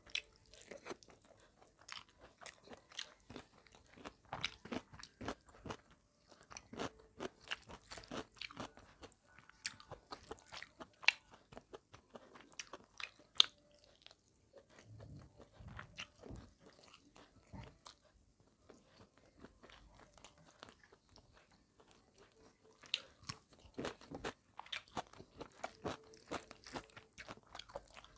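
Close-miked eating by hand: chewing and crunching of rice and chicken curry, with wet mouth clicks and smacks, and fingers squishing rice against a steel plate at the start and end. A couple of sharper clicks stand out in the middle, followed by a quieter stretch.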